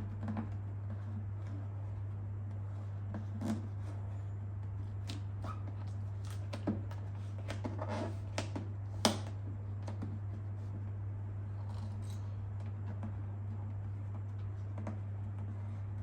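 Scattered light clicks, taps and rustles of hands working a vinyl decal onto a plastic motorcycle fairing, the sharpest tap about nine seconds in, over a steady low electrical hum.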